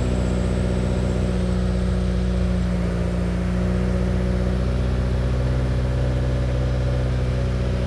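2015 Subaru WRX's FA20DIT turbocharged flat-four idling steadily with its low-pressure fuel pump fuse pulled, so that it runs the fuel pressure down. The accessory belt is noisy, worn enough to need replacing. A faint high whine fades out about two seconds in.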